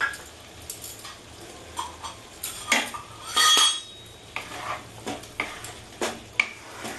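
Spatula stirring and scraping a vegetable curry in a metal kadai, with irregular clinks and knocks against the pan while the garam masala is mixed in. The loudest is a ringing metallic scrape about three and a half seconds in, and there is a sharp click a little after six seconds.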